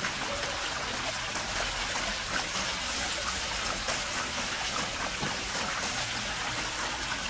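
Steady trickling-water hiss, with faint crackles of aluminium foil being pressed around food.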